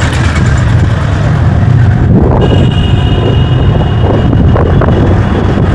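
Wind buffeting the microphone of a camera on a moving motor scooter: a loud, rough, steady rumble with road and vehicle noise beneath. A thin, steady high whine comes in about two seconds in.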